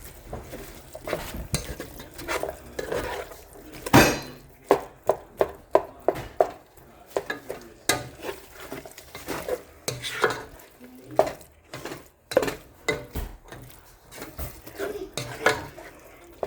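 A cooking utensil stirring and scraping in a pan, knocking against it. There is a loud knock about four seconds in, followed by a quick run of taps, about three a second, with more clusters of taps later.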